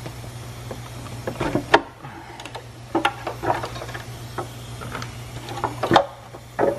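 Hands working on the valve cover of a Honda K20A2 engine: irregular clicks, knocks and light metallic clatter of parts being handled, over a steady low hum.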